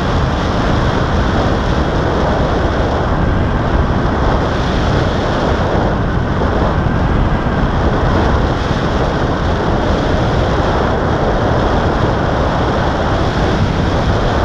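Steady loud rush of airflow buffeting the microphone of a camera carried by a paraglider in flight.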